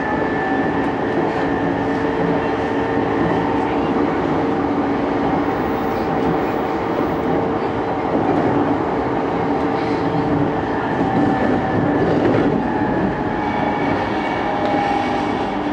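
Running sound inside a JR East E233-2000 series electric train motor car at speed: rumble of the wheels on the rail with the steady whine of the traction motors and inverter.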